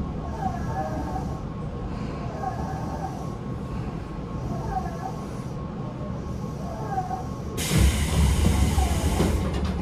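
Running sound inside a Tobu 9050 series electric train car (Toyo GTO-VVVF inverter) travelling between stations: steady wheel-and-rail rumble with the air conditioning running. About seven and a half seconds in, a loud hissing rush lasts about two seconds.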